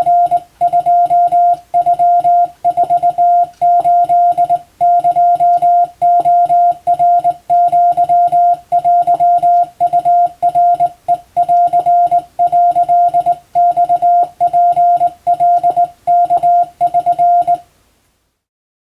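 Morse code (CW) keyed by hand on a telegraph key, heard as a single steady tone of about 700 Hz switching on and off in short dots and longer dashes. It stops near the end.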